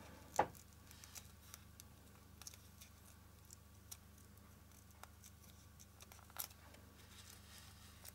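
Quiet handling sounds: scattered faint clicks and light rustles as fingers and fingernails smooth and line up satin ribbon folds on a foam ball, the sharpest click about half a second in. A low steady hum lies underneath.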